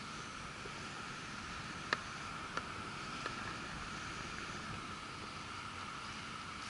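Steady open-air hiss with some wind on the microphone and a faint, steady high-pitched hum. A sharp click comes about two seconds in, and a fainter one follows about half a second later.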